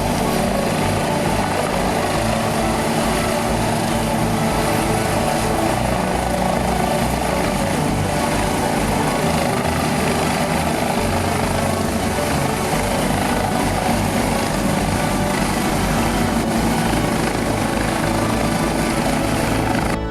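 Helicopter running steadily, a dense rotor and engine noise with a fast flutter in the low end, cutting off abruptly at the end.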